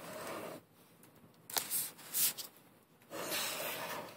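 An Olympus OM10 35mm film camera handled close to the microphone: rubbing and rustling as it is moved about, with two sharp mechanical clicks less than a second apart near the middle.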